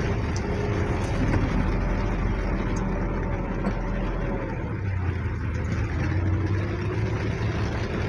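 An engine running steadily, a low hum whose pitch drifts slightly up and down.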